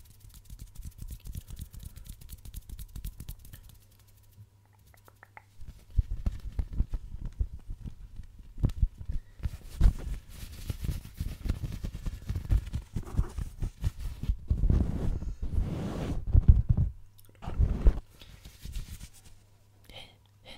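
Fast hand sounds right on a foam-covered microphone: fingers rubbing, tapping and scratching the foam windscreen in rapid soft thumps and rustles, louder from about six seconds in.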